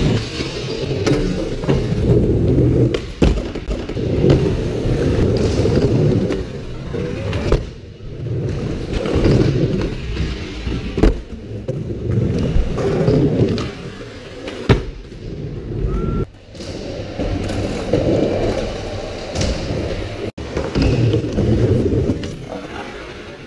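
Skateboard wheels rolling over a skatepark floor and ramps, swelling and fading as the board moves. Sharp clacks of tail pops and board landings come every few seconds during flip tricks.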